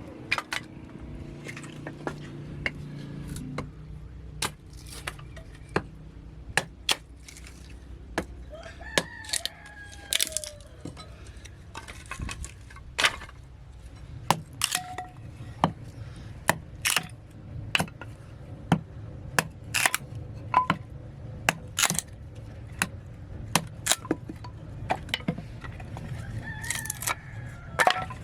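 Domestic chickens clucking, with a rooster's crow about a third of the way in and again near the end, over many short, sharp cracks and taps.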